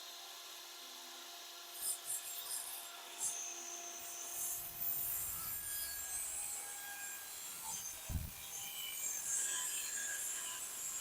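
Wood scraping and rubbing in irregular strokes, over a faint steady hum, with a single low thump about eight seconds in.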